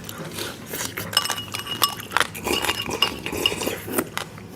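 Tableware clinking: a series of light clinks, several of them ringing briefly, from about a second in.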